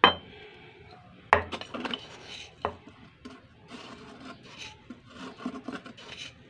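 Kitchenware clinks and knocks from a spoon and an instant-coffee jar being handled: three sharp clinks in the first three seconds, the first with a short ring, then quieter scraping and rubbing.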